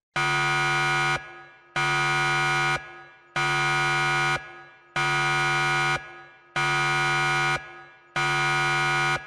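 Electronic warning buzzer sound effect: six identical harsh buzzes, each about a second long, evenly spaced with a short fading echo after each.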